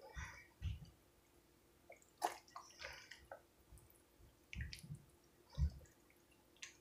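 Silicone spatula stirring thick, creamy seafood Alfredo pasta in a glass baking dish: irregular wet squishes and scrapes, with a few soft low knocks and a sharp click a little past two seconds in.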